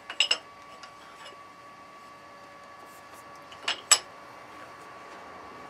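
Flat steel pieces being set into the jaws of a milling machine vise, metal clinking on metal: a quick run of three clinks just after the start and two more a little under four seconds in.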